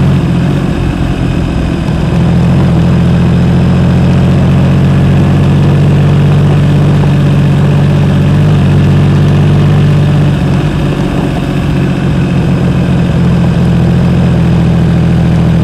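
2012 Triumph Rocket III Roadster's 2.3-litre inline-triple engine running through a Jardine aftermarket exhaust. It makes a steady low drone that eases briefly about a second in and again around ten to twelve seconds in.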